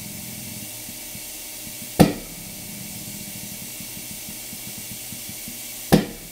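Two sharp clicks about four seconds apart over a steady low hum, from a hydraulic cylinder rig pulling an aluminium workpiece against steel vise jaws. The pressure is building toward the point where the part starts to let go.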